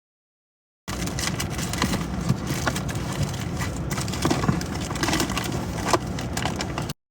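The audio cuts out to dead silence, then about a second in comes a stretch of steady rumbling background noise with scattered clicks and knocks. Near the end it cuts back to dead silence.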